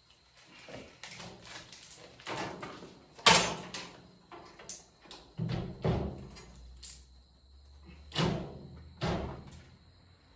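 A steel tool box being handled, with a series of separate knocks and sliding clunks like drawers or doors shutting. The loudest clunk comes about three seconds in.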